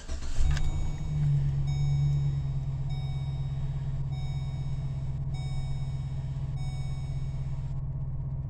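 Pickup truck engine cranked on a new battery, catching within about half a second and settling into a steady idle. Over it a dashboard warning chime sounds in repeated stretches of about a second, stopping shortly before the end.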